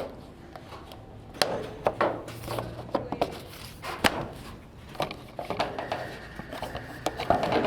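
Irregular knocks, taps and clatter of plumbing pipes and tools being handled, with a few sharper knocks among them. A faint steady tone comes in about six seconds in.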